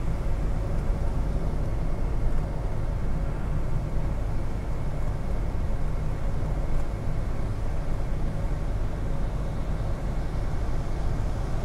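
Steady low drone of a car at expressway speed heard from inside the cabin, engine and tyres running on a wet road.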